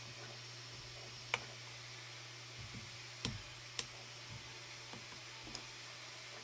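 Small sharp clicks and faint ticks of spudgers prying at the case of a 5th-generation iPod, three louder snaps a second or two apart as the case's clips give, over a steady low hum.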